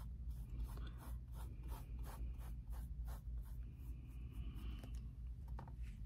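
Paintbrush stroking acrylic paint onto a wooden cutout: soft, faint brushing strokes about three a second, fewer after the first few seconds, over a steady low hum.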